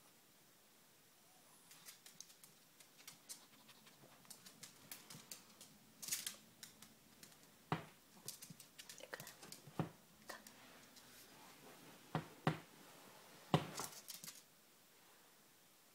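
Yorkshire terrier's claws clicking and tapping on a hardwood floor in an irregular patter, with a few louder knocks in the second half.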